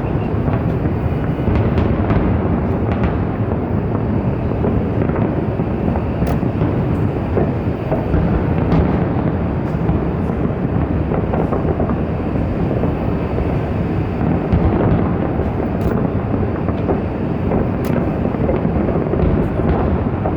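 Fireworks display: a continuous rumble of many shells bursting at once, with a few sharp cracks standing out.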